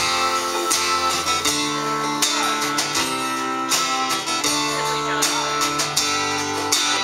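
Live country band playing an instrumental passage before the vocals come in: guitars strumming and picking over drums and cymbals.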